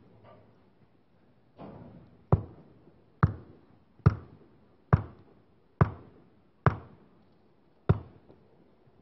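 Seven heavy, evenly spaced thuds, a little under one a second, each dying away quickly, starting a couple of seconds in.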